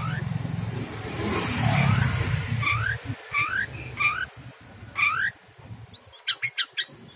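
Red-whiskered bulbul calling: a string of short rising chirps, about half a second apart, over a low rumble in the first half. Near the end, a quick run of sharp clicks like the wire cage rattling under a hand.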